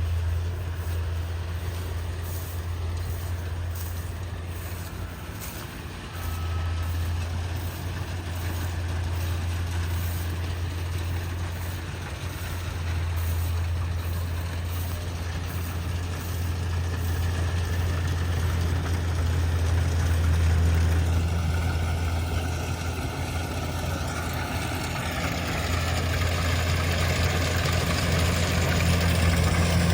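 Kubota DC70G Plus combine harvester running, its diesel engine a steady low hum under broad mechanical noise. About two-thirds of the way through, higher whining tones join in, and the sound grows louder toward the end.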